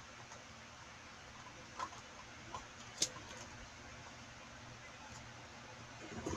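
Slime being handled: a few faint, sharp clicks, the clearest about three seconds in, over a low steady hiss.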